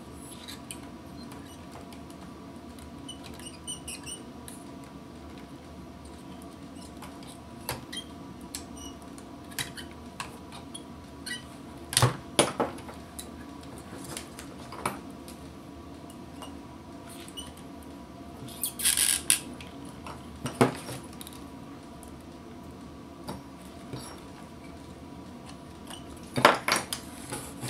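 Circuit-board desoldering work with a soldering gun: scattered small clicks, taps and clinks as the board, parts and tools are handled. A sharper knock comes about twelve seconds in, a short hiss near nineteen seconds, and a cluster of clicks near the end, all over a steady faint hum.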